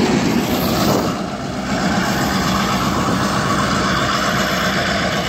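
A steady engine rumble with an even wash of noise over it.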